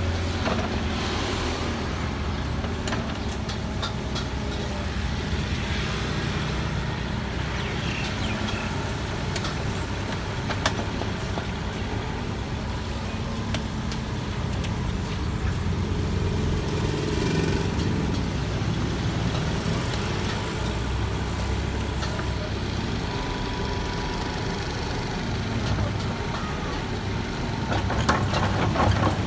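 Kubota excavator's diesel engine running steadily as it works, with a few sharp clanks, several of them close together near the end.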